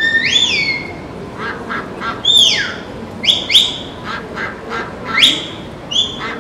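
Shepherd's herding whistle blowing a string of about six sliding commands to a stock dog: a rise and fall at the start, a long falling whistle, two short quick ones in the middle and a rising one near the end. Ducks quack in the gaps.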